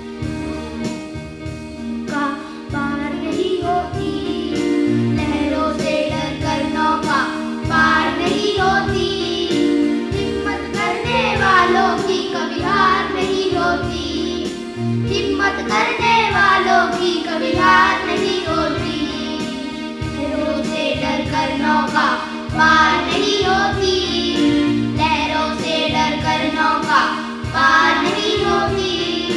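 A group of boys singing a Hindi song into microphones over a recorded backing track with a steady beat.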